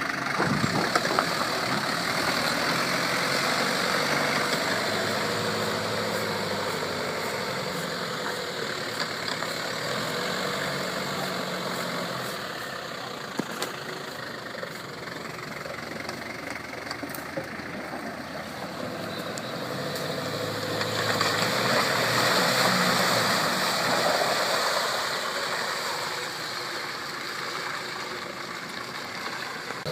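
Off-road 4x4's engine running steadily, getting louder for a few seconds about two-thirds of the way through and then easing back.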